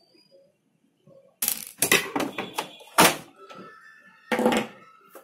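Several sharp plastic clunks and knocks as the opened casing and frame of an Epson L-series inkjet printer are handled and shifted, starting about a second and a half in.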